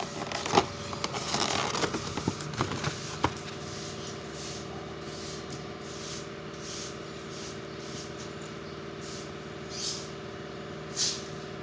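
Scraping, crackling and a few sharp clicks for about three seconds as a new timing belt is handled and taken out of its packaging, then a steady low hum.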